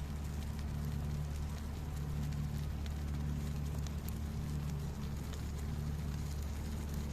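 Wood fire crackling, with scattered small sharp pops over a steady low hum.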